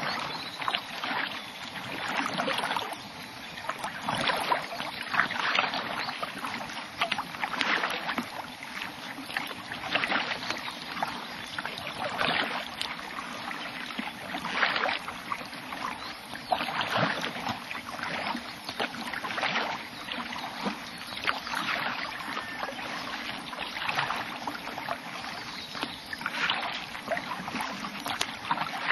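Kayak paddle strokes, the blades dipping and pulling through the water with a splash about every second or so, alternating steadily.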